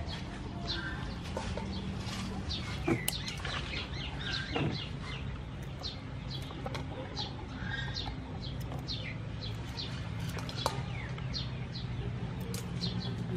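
Small birds chirping throughout in quick, high, falling notes. A few sharp snips of scissors cut green peppercorn stalks.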